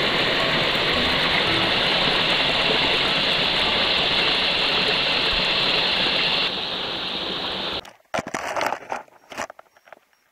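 Creek water rushing steadily over rocks, close by and loud, cutting off suddenly about eight seconds in; after that it is quiet apart from a few scattered knocks.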